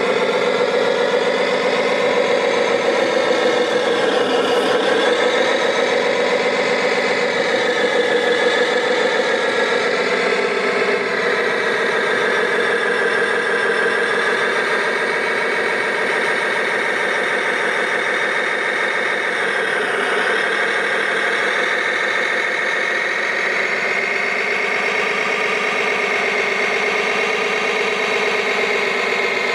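Engine sound of a radio-controlled Liebherr PR 741 crawler dozer model, running steadily. Its pitch dips briefly twice, about four and twenty seconds in.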